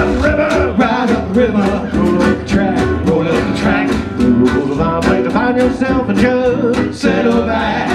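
Jug band playing live: acoustic guitar strumming and a washtub bass under a bending, pitched lead melody, with a steady percussive beat of about four strokes a second.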